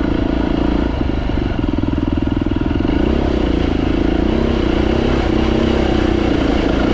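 Beta 390RR single-cylinder four-stroke enduro motorcycle running under way on a trail. Its engine note holds steady, then rises and dips with the throttle from about three seconds in.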